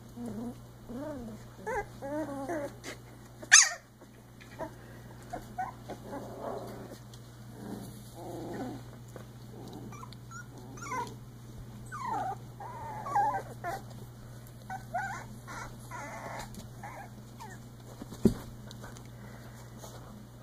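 Three-week-old Icelandic Sheepdog puppies making short whimpers, squeaks and small growls as they wrestle, the calls sliding up and down in pitch. A sharp, loud knock cuts in about three and a half seconds in and a smaller click near the end, over a steady low hum.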